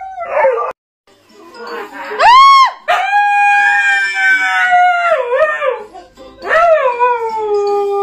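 Siberian husky howling: a short rising-and-falling call, then long howls that slide down in pitch, the last settling on a steady lower note near the end. A brief husky vocalisation is heard at the very start, cut off less than a second in.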